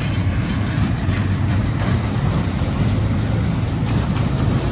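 A steady low mechanical rumble with no clear beat.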